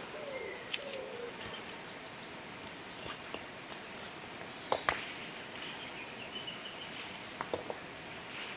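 Outdoor ambience with birds calling: a low cooing call in the first second, then short high chirps. Two sharp knocks come about halfway through, with a few lighter clicks later.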